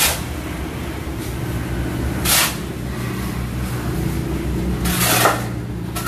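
A small engine running steadily, with three short rasping noises over it, about two to three seconds apart.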